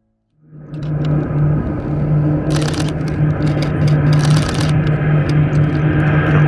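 Steady drone of a formation of KT-1B Wongbee turboprop trainers approaching, with a constant low hum, fading in after about half a second of silence. Two brief bursts of hiss about two and a half and four seconds in.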